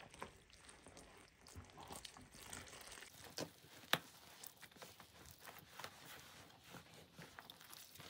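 Hands mixing and kneading flour into a crumbly dough in a plastic bowl. It makes faint, irregular crunching and squishing, with two sharper ticks around the middle.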